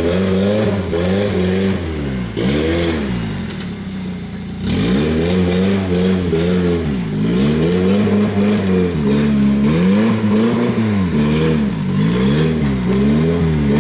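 Off-road 4x4 engine revving up and down again and again as the vehicle works through a rock-crawling section, with a lower, quieter spell a few seconds in.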